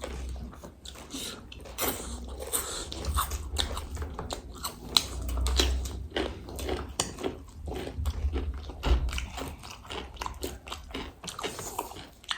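Close-up eating sounds: crisp chatpate and pani puri being bitten and chewed, with many sharp, irregular crunches.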